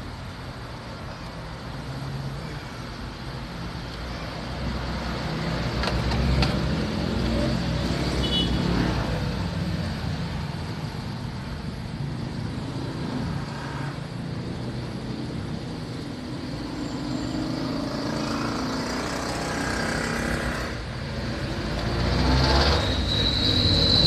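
Road traffic going by: vehicle engines rumbling, swelling and fading several times, with a brief high-pitched tone near the end.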